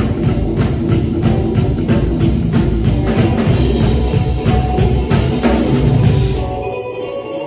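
Live rockabilly band playing: upright bass, electric guitar and drum kit driving a steady beat. Near the end the band drops out briefly, leaving only a few ringing notes.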